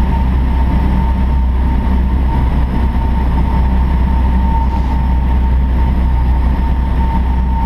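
Piper Cherokee's single piston engine and propeller droning steadily in the cabin in flight, with a thin steady whine on top.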